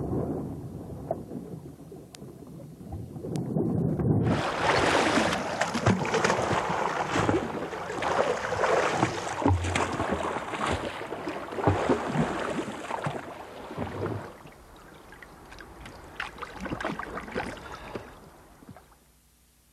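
Water churning around a Greenland kayak as it is rolled. A low rumble at first, then loud splashing from about four seconds in, easing off after about fourteen seconds and dying away near the end.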